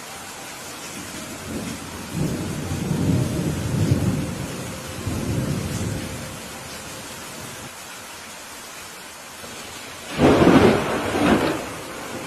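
Steady rain with thunder: a low rolling rumble builds about two seconds in and fades over a few seconds, then a louder, sharper thunderclap comes about ten seconds in, with a second peak just after.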